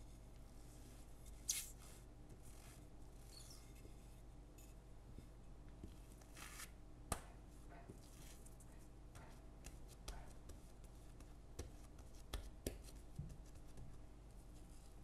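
Quiet handling sounds of bread dough being rolled and pressed flat on a silicone baking mat with a plastic rolling pin and fingers: a couple of soft rustles, then scattered light taps and clicks, over a faint steady hum.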